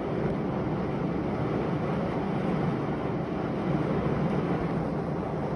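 Steady rushing noise of a thunderstorm, strongest in the low and middle range, even throughout with no distinct thunderclap.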